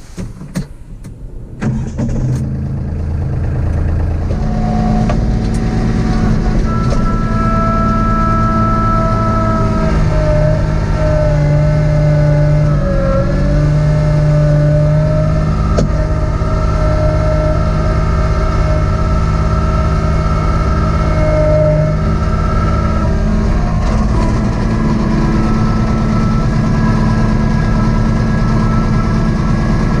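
Kubota B2650 compact tractor's diesel engine running steadily at working speed. It builds up over the first few seconds, and its pitch dips slightly around the middle.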